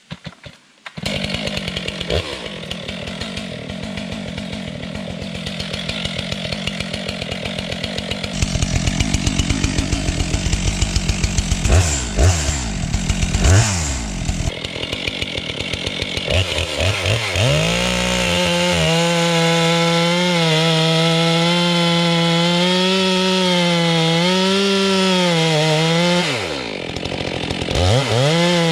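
STIHL MS 462 chainsaw running. It comes in about a second in, revs quickly a couple of times near the middle, then from about two-thirds through is held at high revs with its pitch wavering under load, as when cutting through wood. It eases off briefly near the end and revs up again.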